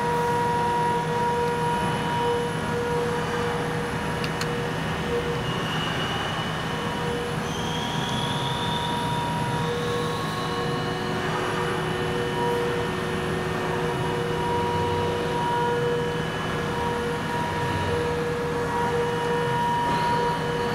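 Steady machine hum with several held tones and an unchanging level: background running machinery.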